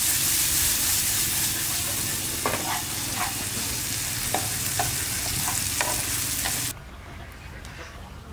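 Bee larvae stir-frying in oil in a nonstick pan, sizzling steadily, with a few sharp clicks of chopsticks knocking the pan as they stir. Nearly seven seconds in, the sizzling cuts off suddenly, leaving only a quiet background.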